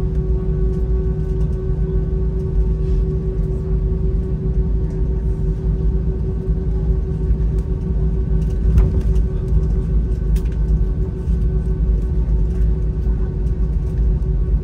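Cabin noise of an Airbus A319 with IAE V2500 engines at idle as it taxis for takeoff: a steady low rumble with a constant hum over it.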